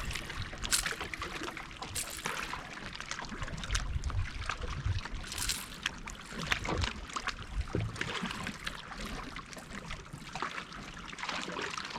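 Water lapping and trickling against a fishing boat's hull, with scattered small knocks and clicks of handling on board.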